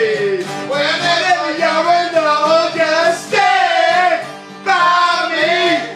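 Men singing loudly in long, wavering held notes without clear words, over strummed acoustic guitars, in a loose group sing-along.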